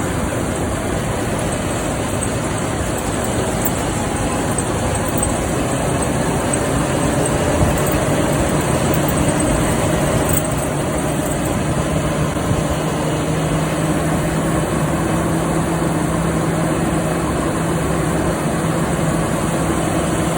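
Farm machinery engine running steadily, with a constant low hum under a wash of mechanical noise.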